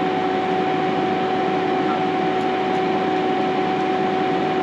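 Small electric fan running steadily: an even whooshing hiss with a constant two-note hum.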